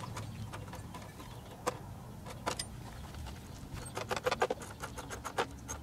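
Light metallic clicks and clinks of a hand tool working the air-box bolts under the hood, with a quick run of clicks about four seconds in.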